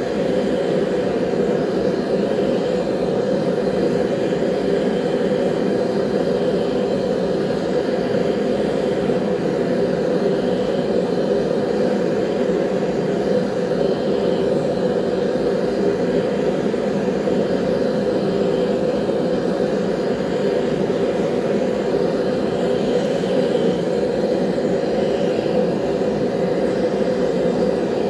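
Forge running with a steady, unbroken rushing noise while a knife blade heats inside it for annealing.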